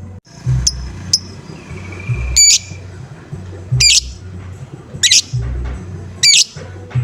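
Lovebird giving short, harsh, squawking calls, five in a row about every second and a bit, with a longer held whistle about two seconds in. Low thumps run beneath the calls.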